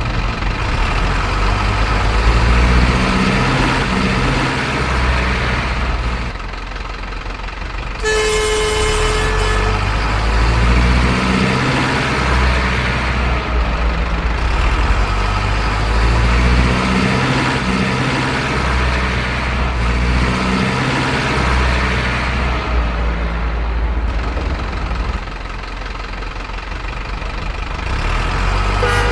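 Truck engine sound running and swelling in repeated stretches, with a single horn toot lasting about a second and a half about eight seconds in.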